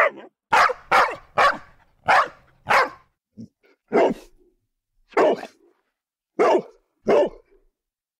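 A dog barking repeatedly, about ten sharp barks, coming quickly at first and then with longer gaps, the last about seven seconds in. The dog is barking up at a drone flying overhead.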